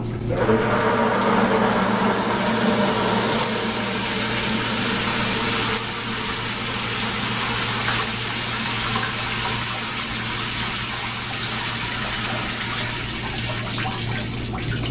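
Water poured from a handheld container, falling in a shower of streams as simulated heavy rain and splashing below: a steady watery hiss that starts just after the beginning, eases a little about six seconds in, and stops just before the end.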